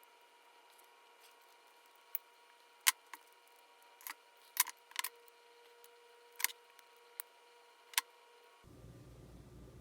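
A string of about nine sharp, irregular clicks and snaps as a Traxxas Slash differential yoke is forced by hand onto the drive shaft's pronged ball end.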